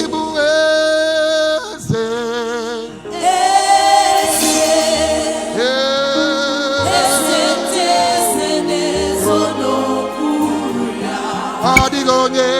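Gospel worship song: sung voices with a choir, the pitch wavering with vibrato and held on long notes, over sustained bass notes.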